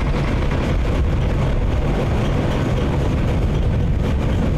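Small 0-4-0 diesel shunting locomotive's engine running close by, a steady low rumble.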